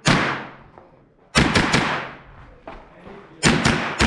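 Gunshots fired in quick groups of about three, each shot trailing off in a long echo, with a couple of fainter shots between the groups.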